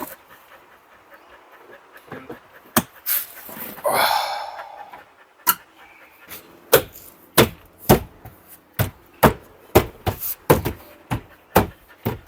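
A door card being pressed onto a car door: a scraping rustle of the panel, then a run of sharp knocks, about two a second, as it is thumped home over its retaining clips.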